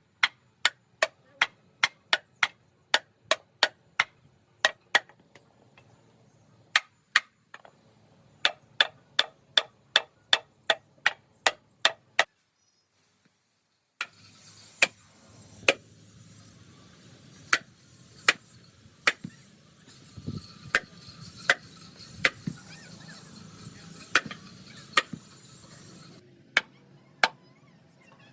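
Hand-tool blows on work in wooden wheel making, sharp and quick, about two to three a second. About twelve seconds in they break off in a short gap of silence, then come back slower and irregular over a faint steady noise.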